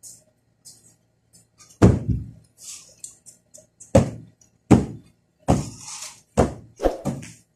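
Irregular dull thumps, about seven in the last six seconds, with cloth rustling between them: sofa cushions being slapped and set down and curtains being shaken out while a room is dusted.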